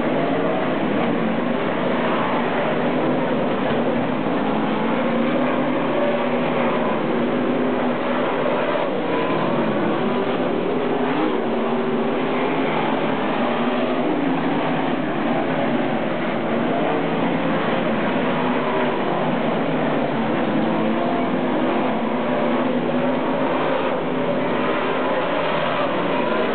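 A field of winged dirt-track sprint cars racing, their V8 engines running hard together in a continuous loud drone. The engine notes rise and fall as the cars lap the oval.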